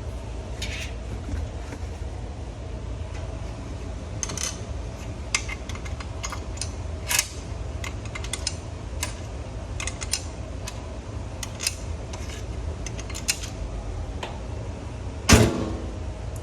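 Handling noises at a washing machine: scattered clicks and taps over a steady low hum, with one loud knock that rings briefly about fifteen seconds in.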